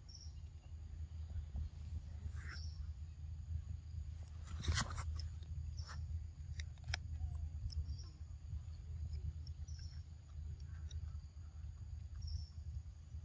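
Outdoor ambience with a steady low rumble and short, high bird chirps every couple of seconds. About five seconds in comes a burst of sharp crackling clicks, the loudest sound here, followed by a few scattered ticks.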